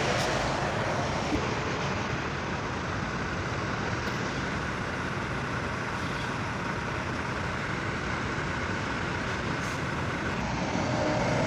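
Steady drone of vehicle engines running, growing a little louder near the end.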